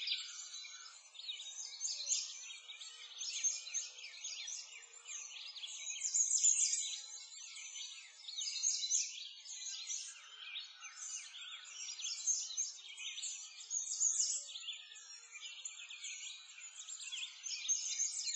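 A chorus of many small birds chirping, with quick overlapping calls that rise and fall in loudness throughout.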